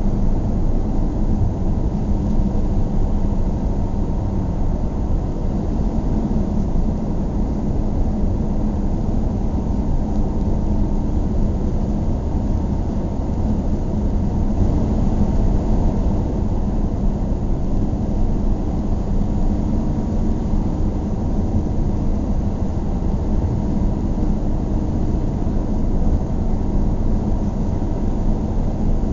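A car driving at a steady pace, its engine and tyre noise forming an even low rumble with a faint steady hum.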